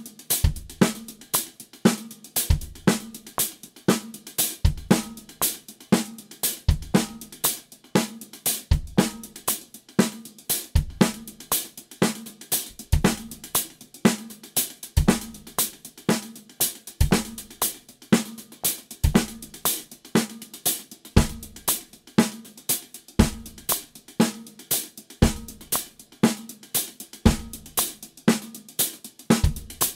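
Drum kit groove: steady hand-to-hand 16th notes on the hi-hat, accented snare backbeats on 2 and 4, and a single bass drum note per bar that shifts position along the 16ths.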